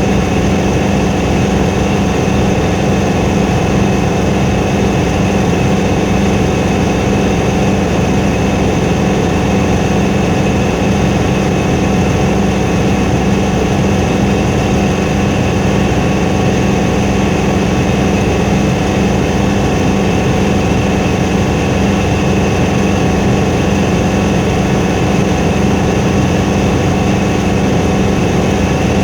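Helicopter engine and rotor running with a loud, unchanging drone carrying several steady tones.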